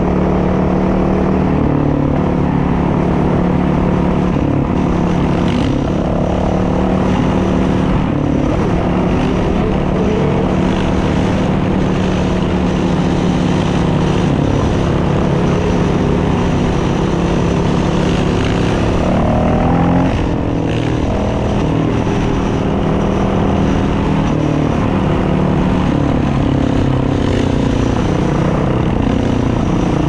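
Dirt bike engine running under way on the street, its pitch rising and falling with the throttle. The revs climb and then drop away briefly about two-thirds of the way through.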